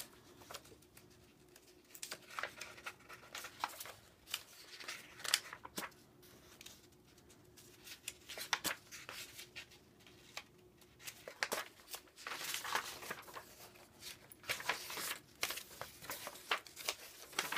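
Paper pages of a colouring book being turned by hand: irregular rustles, flaps and light paper clicks as each page is lifted and laid over.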